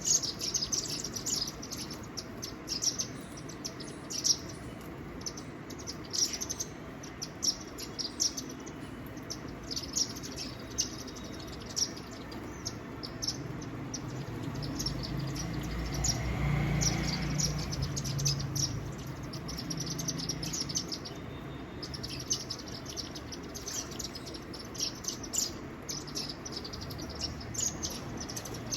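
Small birds chirping, many short high calls repeated throughout with a brief lull about three-quarters of the way in. A low rumble swells and fades in the middle.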